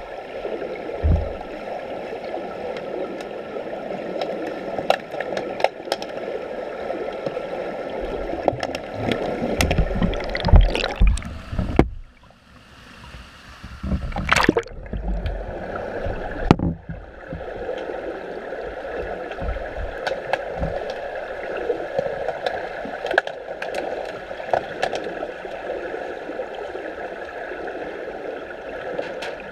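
Underwater pool sound picked up by a submerged camera during underwater hockey: a steady muffled water noise with scattered clicks and knocks. About 12 s in it drops away as the camera breaks the surface, with splashing at the surface before it goes under again around 17 s.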